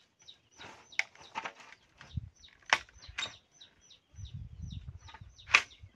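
A long green bamboo pole cracking as it is split lengthwise by hand, four sharp loud cracks, the loudest near the end. A bird chirps over and over in quick succession underneath.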